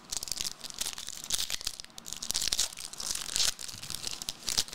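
Foil trading-card pack wrapper being torn open and crinkled by hand: dense, irregular crackling that starts and stops with the handling.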